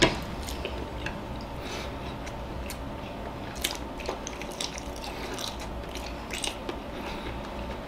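A person chewing mouthfuls of boiled egg: irregular small wet mouth clicks, a few each second, over a faint low hum.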